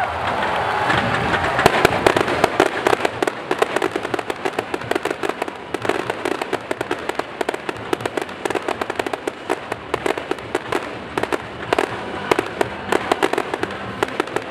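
Aerial fireworks bursting overhead with a dense, rapid run of crackling pops and bangs that thickens about two seconds in.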